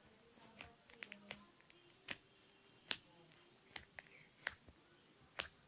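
Sticky homemade slime being pressed and pulled by hand, giving about ten sharp, irregular clicks and pops, the loudest about three seconds in.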